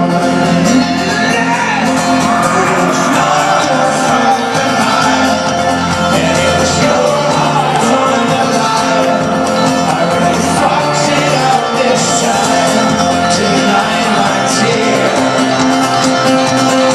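Live folk-rock band playing loud, with the crowd shouting and singing along.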